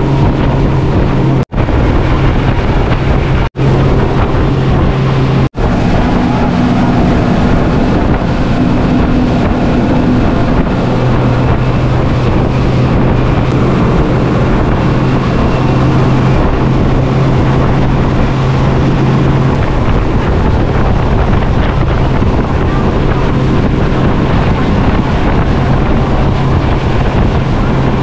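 Speedboat engine running steadily under way, a low drone under heavy wind buffeting on the microphone. The sound drops out for an instant three times in the first six seconds.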